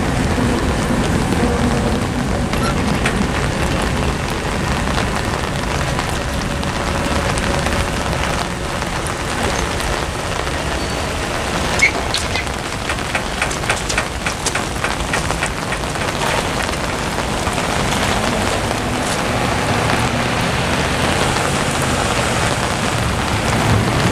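Steady rain falling on pavement and gravel. About twelve seconds in there is a sharp click, followed by a few seconds of quick, light, evenly spaced ticks, about three or four a second.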